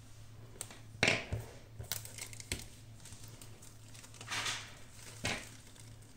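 Smartphone packaging being handled and opened: crinkling and rustling in several short bursts, the loudest and sharpest about a second in, another longer one past the middle.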